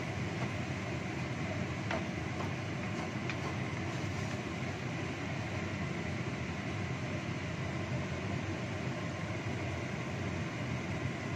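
Sweet-soy chili sauce simmering and bubbling in a wok over a gas burner, a steady noise, with a few light taps of the wooden spatula about two to three seconds in.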